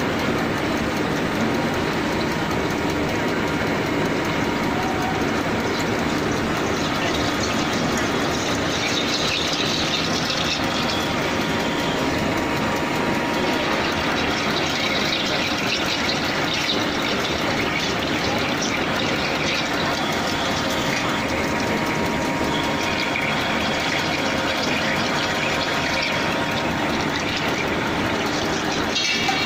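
HZ500 CNC drilling machine drilling into a metal workpiece: a steady, even mechanical noise from the spindle and the cut.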